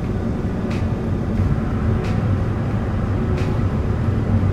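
Car interior road noise at freeway speed: a steady low rumble of tyres and engine, with faint light clicks about every two-thirds of a second.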